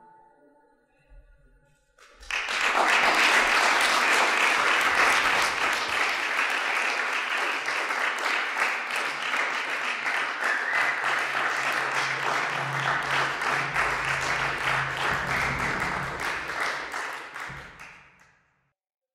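Audience applauding: the last piano notes fade, then about two seconds in clapping breaks out, holds steady, and dies away near the end.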